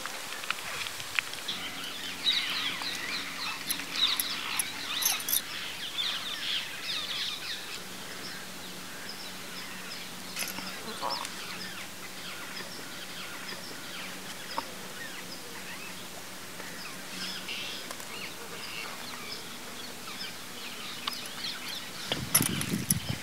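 Outdoor rural ambience with birds chirping again and again, thickest in the first few seconds and again near the end, with scattered light clicks and a faint steady low hum underneath.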